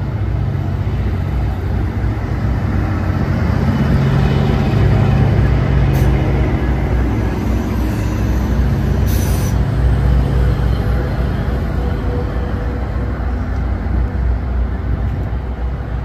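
GO Transit diesel locomotive engines running, a deep steady rumble that grows louder over the first few seconds. A brief hiss comes about nine seconds in.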